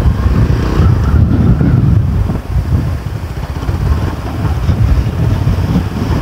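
Heavy wind buffeting on the microphone over a motorcycle running on the move, easing briefly about two and a half seconds in.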